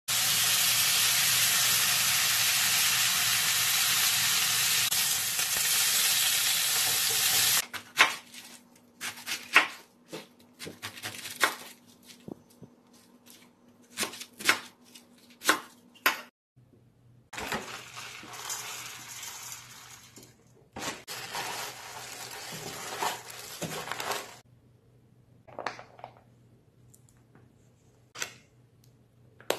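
Thin slices of pork belly sizzling in a frying pan, a loud steady hiss that cuts off suddenly after about seven and a half seconds. A kitchen knife then chops napa cabbage on a wooden board in a run of sharp, separate chops. Another stretch of steady hiss follows, and a few scattered knocks come near the end.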